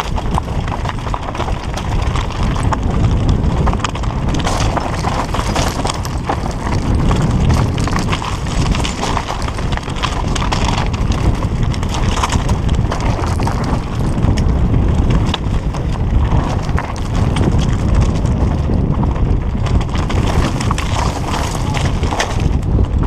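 Downhill mountain bike clattering over a rocky trail at speed: a steady run of irregular knocks and rattles from tyres hitting stones and the bike's frame and chain, over a constant low rumble of wind and rolling noise on the camera.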